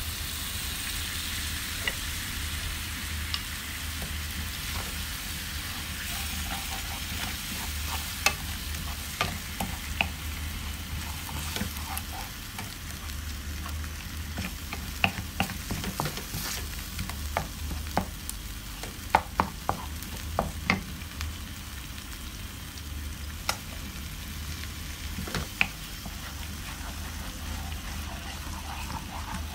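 Creamy mushroom mixture sizzling in a nonstick frying pan while a spatula stirs and scrapes through it, with frequent light knocks of the spatula against the pan, most of them in the second half. A steady low hum runs underneath.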